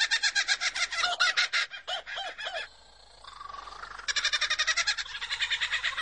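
Superb lyrebird singing its mimicry song, copying the calls of other birds: fast runs of repeated notes, broken by a pause of about a second midway before the runs resume.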